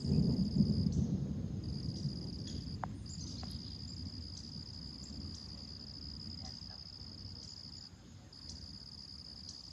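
A peal of thunder rumbles in right at the start, loudest in the first second, then fades away over the next few seconds. An insect sings a steady high-pitched drone underneath, broken by a few short gaps.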